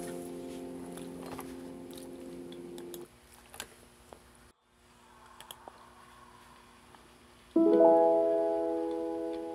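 Soft, slow piano music: a held chord dies away, a few seconds of near quiet with a few faint clicks, then a new chord is struck near the end.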